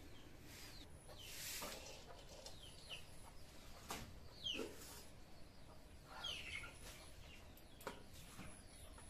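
Faint village ambience: small birds give short falling chirps every second or so, and a chicken clucks once about halfway through. Two sharp clicks come near the middle and near the end.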